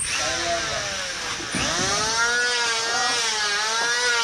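Electric angle grinder switched on and grinding into masonry, its motor pitch dipping sharply as it bites about one and a half seconds in, then wavering up and down with the load.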